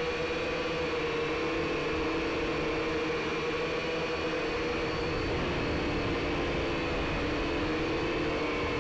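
Small toy quadcopter's motors and propellers humming with a steady whine, heard through the drone's own onboard camera; the pitch shifts slightly about five seconds in.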